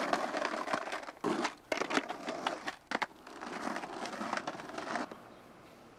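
Skateboard wheels rolling and rattling over asphalt and brick pavement, broken by sharp clacks of the board; the rolling noise stops about five seconds in.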